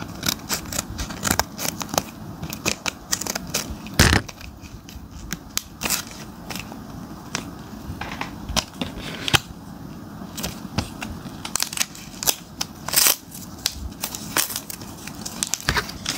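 Scissors snipping and plastic packaging being cut open and handled: an irregular string of sharp snips and crackles, with the loudest ones about four seconds in and again about thirteen seconds in.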